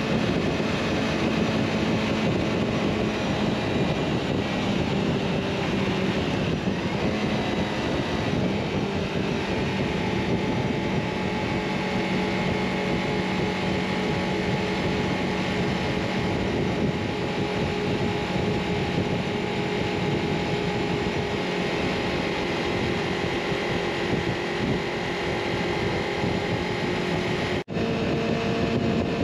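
Small adventure motorcycle engine running at a steady cruise, with wind rushing over the action-camera microphone. Near the end the sound briefly cuts out and comes back at a different, steady pitch.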